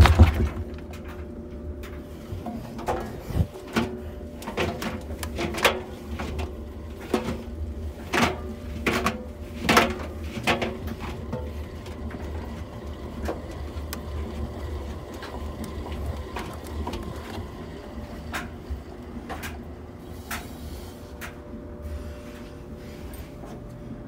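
Front-loading washing machine drum spun by hand and turning freely with a single towel inside: a steady low rumble with irregular clicks and knocks. It is loudest at the very start, and the knocks grow sparser through the second half.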